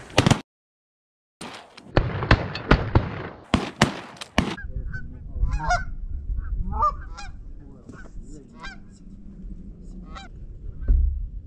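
Canada geese honking, a flock calling in many short honks over low wind rumble. Before the honking, from about a second and a half to four and a half seconds in, a rush of noise with a string of sharp cracks.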